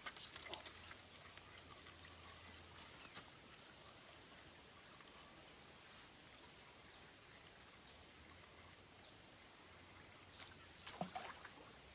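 Near silence: quiet outdoor ambience with a steady high-pitched insect drone, and a few light clicks at the start and again near the end.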